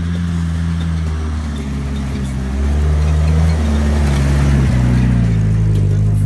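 Jeep Wrangler engine working under load as it climbs a muddy track and passes close by, its pitch stepping up and down as the throttle changes. It grows louder about two and a half seconds in and is loudest as it goes by, about four seconds in.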